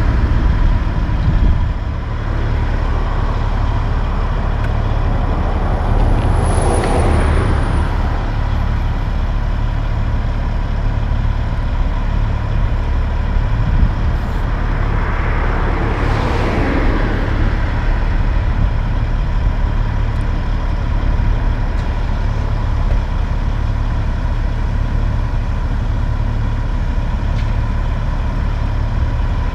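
Peterbilt car-carrier tractor's diesel engine idling with a steady low rumble and a constant thin tone over it. Vehicles pass by twice, about a quarter of the way in and again just past the middle.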